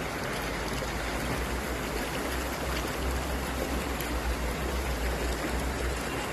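Stream water rushing steadily, with a low rumble underneath.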